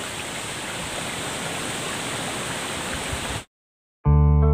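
Steady rushing of a small creek's running water, which cuts off abruptly about three and a half seconds in. After a brief silence, plucked guitar music starts.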